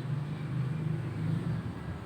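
A low, steady engine-like rumble, like a motor vehicle running or passing nearby.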